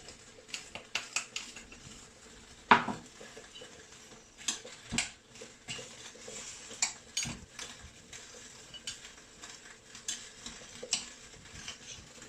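A spoon clinking and scraping against a bowl as chopped onion is stirred into a tuna and coriander mixture, in irregular knocks with one louder knock about three seconds in.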